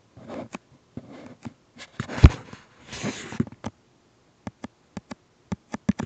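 Handling noise of a handheld recording device being moved about: scattered clicks and short rustles, with one loud knock a little over two seconds in.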